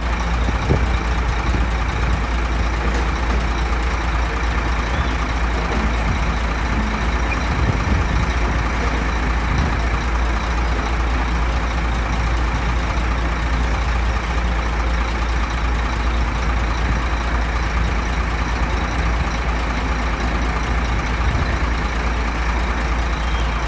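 Heavy diesel construction machinery running steadily with a deep, continuous rumble.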